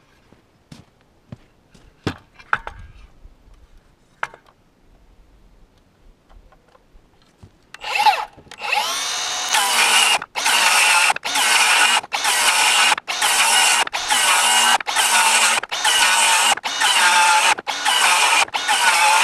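Faint handling clicks, then about eight seconds in a cordless circular saw spins up and cuts into a wooden plank. The cut goes in a run of short pulses with brief dips, about one and a half a second.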